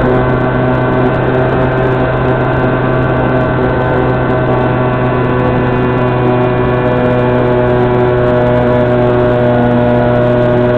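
Electric motor and propeller of an Opterra flying-wing model plane, heard through the onboard mic as a steady droning hum whose pitch shifts slightly about halfway through.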